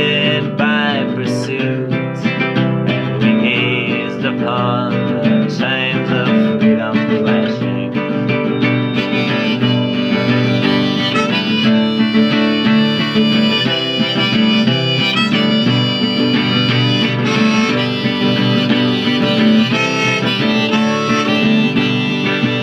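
Harmonica playing a melody over a steadily strummed small-bodied acoustic guitar: an instrumental harmonica break in a folk song.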